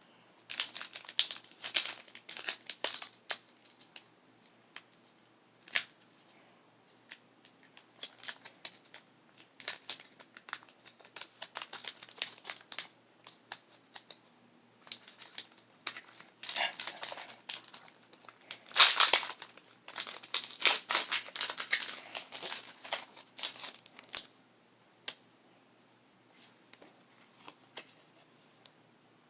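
Foil wrapper of a Pokémon booster pack crinkling and being torn open, in irregular crackly bursts, with the loudest crinkling about two-thirds of the way through.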